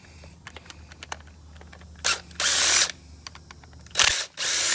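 DeWalt cordless driver spinning out the brake caliper's T30 Torx pins, which have already been broken loose, in two short bursts about two seconds in and again near the end, after light clicks of the bit being fitted.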